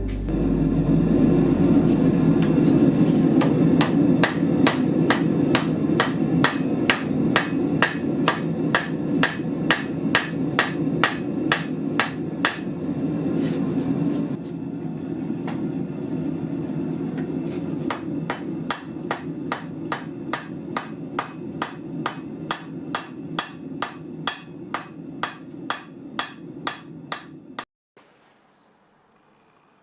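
Forging hammer striking Damascus steel on the anvil in an even rhythm, about two blows a second, over a steady low drone. The blows stop abruptly about two seconds before the end.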